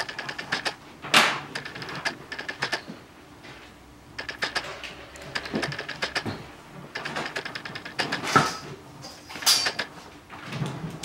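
Irregular clicks and knocks of tools and small objects being picked up and set down on a workbench, with a few louder knocks about a second in and again near the end.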